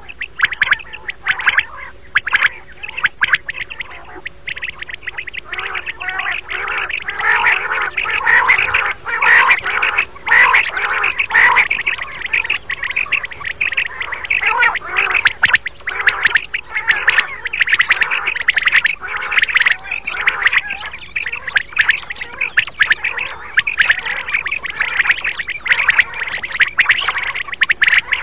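Common quail calling: a dense, continuous chorus of short, rapid, overlapping chirping calls, as used in a recording to lure quail.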